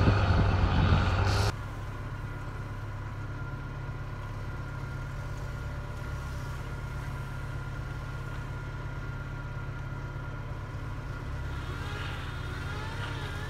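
A truck engine revving hard with tyres spinning in snow, cut off suddenly about a second and a half in. Then a solid-axle Toyota pickup's engine running low and steady as it crawls slowly through deep snow.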